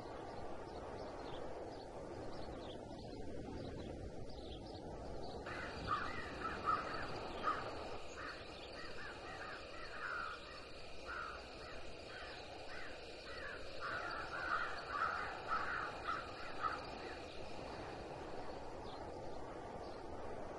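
Crows cawing: a long run of short, harsh caws repeated about twice a second for some ten seconds, starting about five seconds in.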